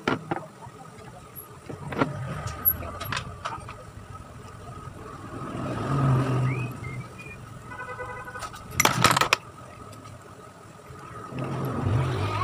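Sharp metal clicks and taps of small parts and a screw being fitted to a Honda Click scooter's throttle body, with a quick cluster of clicks about nine seconds in. Behind them a low rumbling swell rises and fades twice.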